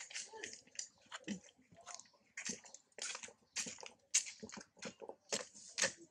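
Close wet chewing and lip-smacking from a monkey: a quick, irregular run of soft clicks and smacks.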